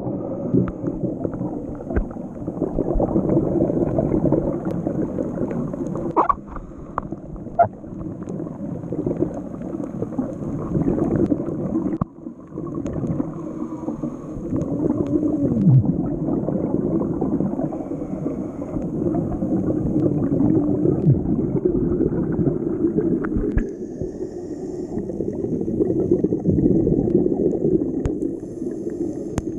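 Muffled underwater gurgling and rushing of a scuba diver's breathing bubbles, picked up underwater by the camera, swelling and fading in slow cycles, with a few short clicks in the first quarter.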